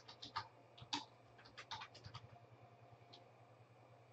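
Faint typing on a computer keyboard: a quick run of keystrokes for about two seconds, then a single keystroke near the end.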